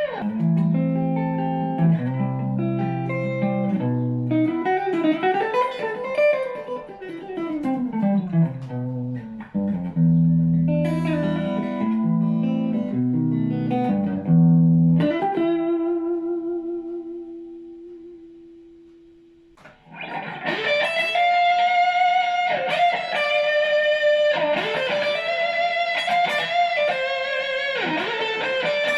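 Electric guitar played through effects pedals and an amp: a low riff with sliding notes for about fifteen seconds, then a single held note that fades away, then a brighter, busier passage starting about twenty seconds in over a sustained note.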